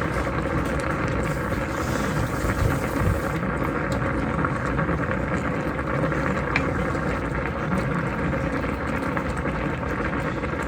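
Food simmering in a pan: a steady bubbling noise.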